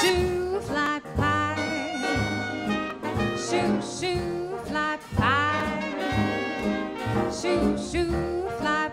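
Live big-band swing music: trumpets, trombones and saxophones playing together over a steady beat from bass and drums.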